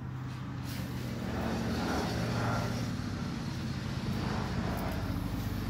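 1984 Suzuki DR100's small single-cylinder four-stroke engine idling steadily, a little louder after about two seconds.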